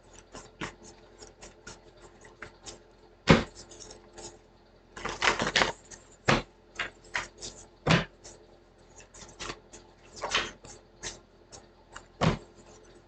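Scattered light clicks and taps, with a handful of louder knocks at irregular intervals.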